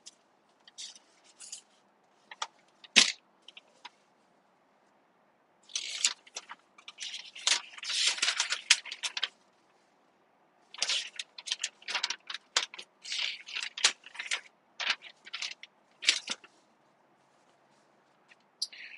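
Searchlight's box and packaging being opened and handled: scattered clicks, a sharper knock about three seconds in, then spells of crinkly rustling and scraping.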